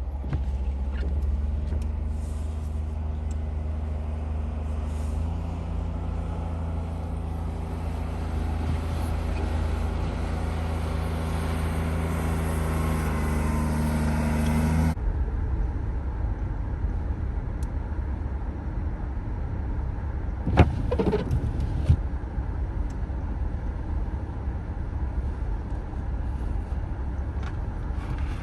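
Car driving, steady engine and road hum. About halfway through it cuts abruptly to a rougher rumble, with two sharp clicks a little later.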